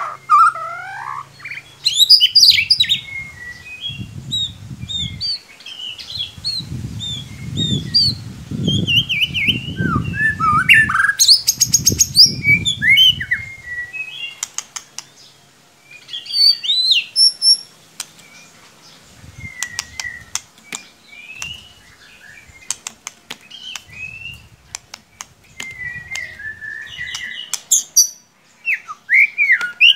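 White-rumped shama (murai batu) singing: a varied run of quick whistled, warbling and chattering phrases with short gaps, used as a lure recording to get a caged shama to sing. A low rumble sits under the song during the first half.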